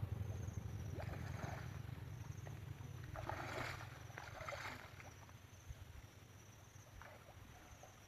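Water splashing and sloshing in a few short bursts, with insects trilling faintly and repeatedly in the background.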